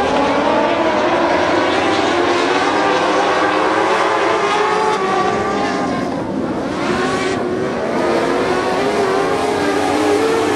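A pack of motorcycle-engined dwarf race cars running hard together, several engine notes overlapping and wavering up and down as they pass. The sound dips and falls in pitch about six seconds in, then builds again.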